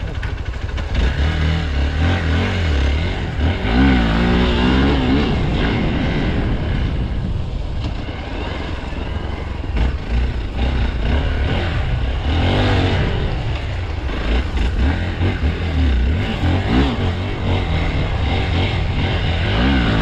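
Off-road motorcycle engine running as it is ridden over rough dirt, revving up and easing off several times.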